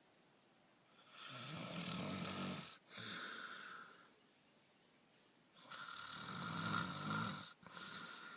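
A sleeping person snoring: two deep snoring breaths about four seconds apart, each a loud rattling draw followed by a shorter, softer breath out.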